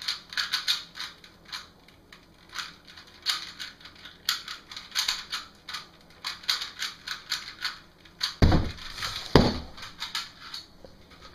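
A 3x3 Rubik's cube being turned quickly during a solve: bursts of rapid plastic clicking and clacking from the layers snapping round. Two heavy thumps about eight and nine seconds in.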